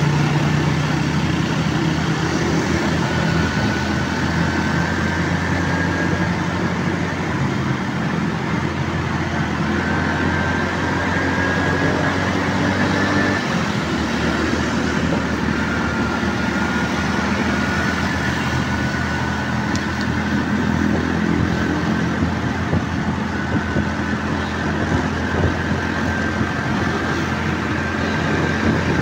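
Steady road noise heard from a moving vehicle in night traffic: a low engine hum under tyre and wind rush, with other cars and motorcycles running close alongside. The engine note changes about halfway through.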